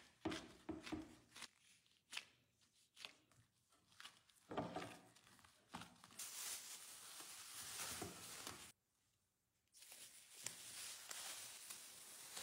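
Dough being kneaded by a hand in a thin plastic glove: soft squishes and small taps against the bowl, then a steady rustling of plastic as the glove works the dough and cling film is stretched over the bowl.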